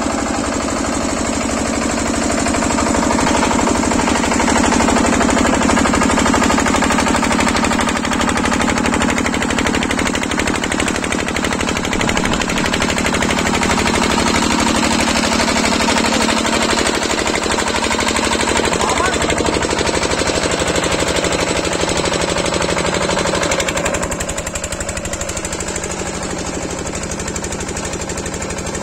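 Stationary diesel engine of a portable borewell drilling rig running steadily under load, with a fast, even knocking beat. The sound drops slightly and gets duller about 24 seconds in.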